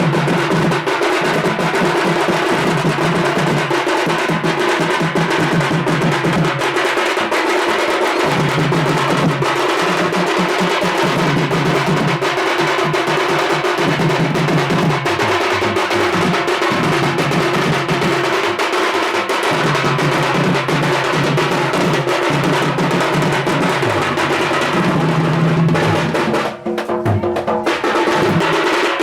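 Loud, percussion-heavy music: fast drumming over a bass line that moves in steps, breaking off for a moment near the end.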